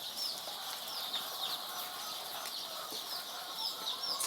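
A brood of three-day-old layer chicks peeping: short, high chirps that slide downward in pitch, several a second from many birds at once.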